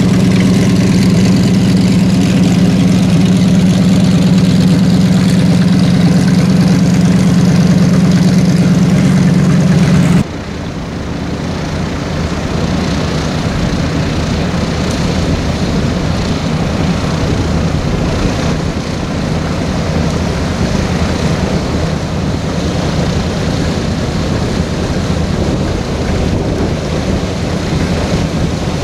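Airboat engine and propeller idling with a steady, loud hum; about ten seconds in, the sound cuts off abruptly to a quieter, less even engine noise.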